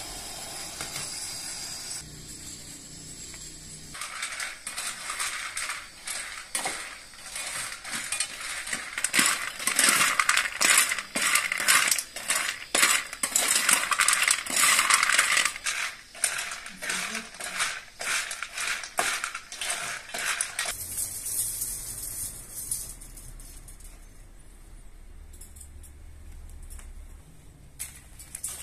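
A metal spatula stirring and scraping roasting kernels in a metal pan over a portable gas burner: a dense, uneven run of clinks and scrapes that starts a few seconds in and stops abruptly about two-thirds of the way through.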